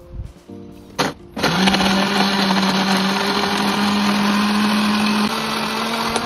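Philips 600 W countertop blender starting about a second and a half in and running steadily, puréeing soaked dried chillies with water; a knock sounds just before the motor starts.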